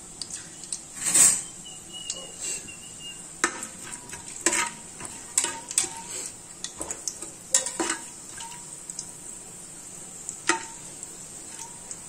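Steel ladle stirring and scraping against the bottom and sides of an aluminium pressure cooker, with irregular metallic clinks, the loudest about a second in. Under it, whole spices sizzle steadily as they fry in the hot fat.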